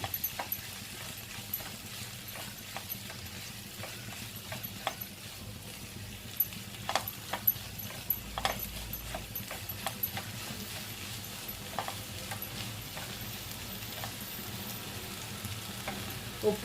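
Spatula stirring okra through a frying masala in a pan: scattered light taps and scrapes of the spatula on the pan over a steady soft sizzle, with a couple of louder knocks about halfway through.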